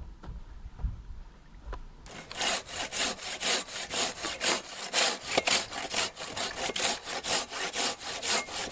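Hand saw cutting through a piece of hardwood in rapid back-and-forth strokes, about three a second, starting about two seconds in after a few faint clicks.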